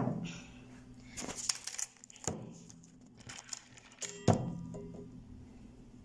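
Tableware being set down on a glass-topped table: a scattering of light clicks and clinks, then a sharper knock with a brief ring about four seconds in.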